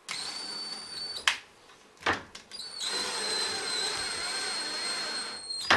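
DeWalt cordless right-angle drill driving a brass wood screw through a cabinet door into a wooden knob: two runs of steady high motor whine, the first about a second long and the second about three seconds, with sharp clicks between them and at the end.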